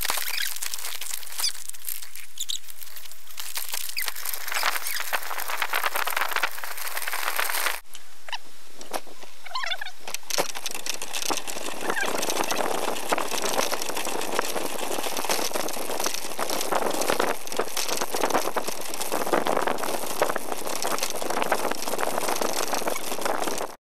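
Bicycle rolling along a rough trail, heard from a camera mounted on the bike: a steady mix of tyre noise, rattle and wind. It goes first over snow, then, after a sudden break about eight seconds in, over dry grassy ground with a heavier rattle.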